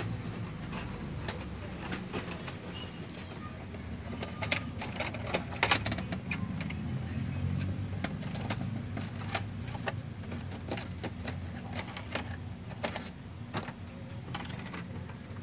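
Irregular clicks and light knocks of the plastic cover and flat ribbon cable of a Brother DCP-T700W inkjet printer being handled and fitted by hand, over a steady low hum.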